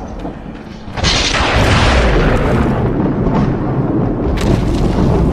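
Storm wind buffeting the phone's microphone, a loud uneven rumble, with a sudden stronger gust about a second in that rushes and fades over a couple of seconds.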